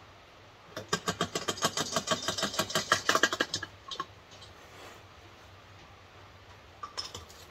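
Quick run of small clicks, about ten a second for some three seconds, then a few faint knocks near the end, from refuelling a 1971 Coleman 502 camp stove with Coleman fuel.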